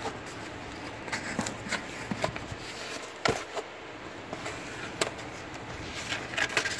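Handling of a cardboard product box as its lid is opened and the contents are reached into: scattered light taps, clicks and rustles, with one sharper knock about three seconds in.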